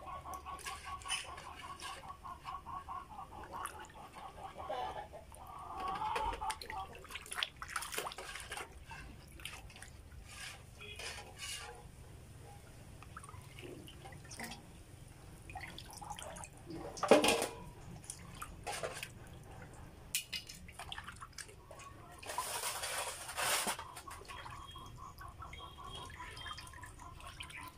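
Water sloshing and dripping in a steel basin as a raw duck is rubbed and rinsed by hand to wash off its slime, in irregular splashes with one sharper, louder sound a little past halfway.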